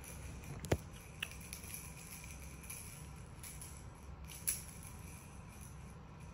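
A few sharp clicks and light rattles as plastic hanging toys are handled and fastened onto a baby play gym's arches. The loudest click comes just under a second in, with smaller ones soon after and one about four and a half seconds in.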